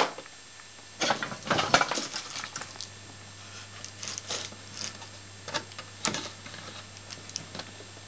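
Handling noise: a sharp click at the start, a cluster of light clicks and rustles about a second in, then scattered single taps, over a steady low hum.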